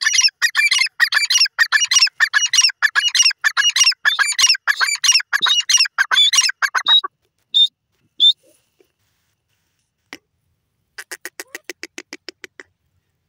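Grey francolin (teetar) giving its loud, repeated call: a fast series of shrill notes, about three a second, running for some seven seconds, then two single notes. After a pause, a quieter, quicker run of about a dozen short notes.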